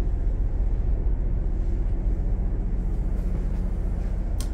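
Steady low machinery hum inside a motorhome, with a single sharp click near the end.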